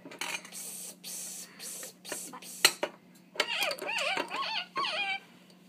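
Plastic toy animals handled on a tabletop, with short rustles and a sharp tap about midway, then a young girl making a high, wavering, sing-song animal-like call for about two seconds.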